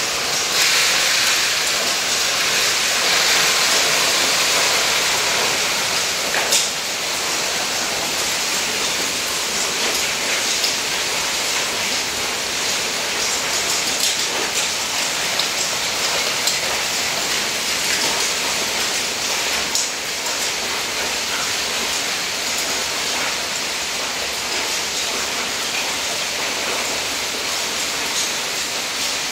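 Hail pelting the paving, gravel and roof in a dense, steady hiss of small impacts with scattered sharper ticks. It is heavier for the first few seconds, with one louder tick about six and a half seconds in.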